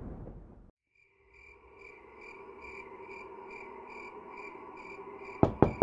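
Crickets chirping in a steady rhythm of about four chirps a second over a faint low drone, starting after a moment of silence; two sharp knocks near the end.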